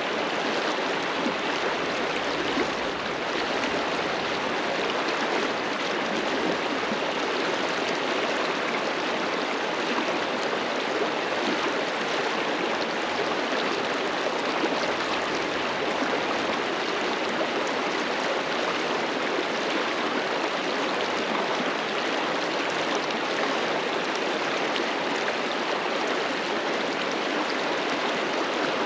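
A fast mountain river flowing over rocks, a steady, even rushing of water.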